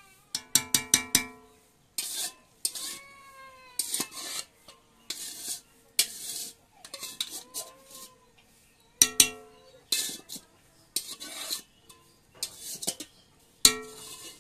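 A wooden spatula stirring and scraping frying chicken masala in a black kadai, in irregular strokes about once a second. On some strokes the pan gives a brief metallic ring.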